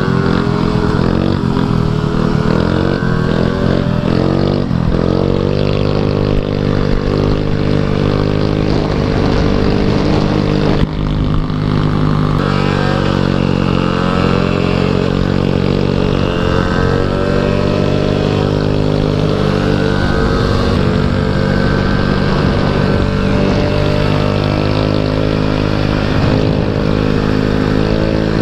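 A 150cc GY6 scooter's four-stroke engine running under way, heard close up from the rider's seat. Its pitch rises and dips a few times in the first several seconds as it pulls away, then holds a steady drone while cruising.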